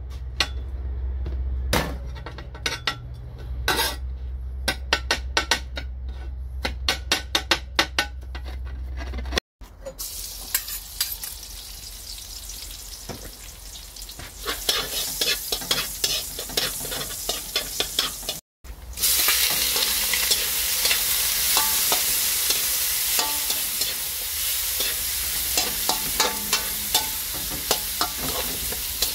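Quick taps of a knife chopping garlic on a cutting board, over a low hum. Then garlic sizzling in hot oil in a wok. Near two-thirds of the way through, a louder sizzle of raw chicken wings frying, with a metal spatula scraping and stirring them in the wok.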